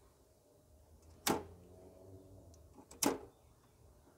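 Toggle switches on an electrical switchboard (main switch and RCDs) being flicked on: two sharp clicks about a second and a half apart.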